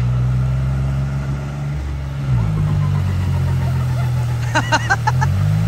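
Tractor's diesel engine running hard under load while pulling a mired SUV through deep mud; its pitch dips and picks back up about two seconds in and again near the end. Brief shouts come near the end.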